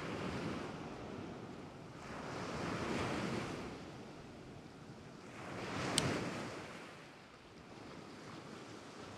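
Sea waves washing in, swelling and fading in surges about every three seconds, with a single sharp click about six seconds in.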